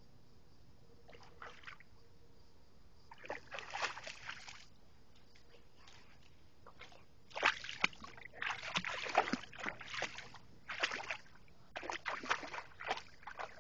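Water splashing as a dog wades through shallow water, in irregular bursts: a short spell about three seconds in, then a longer run of splashing through the second half.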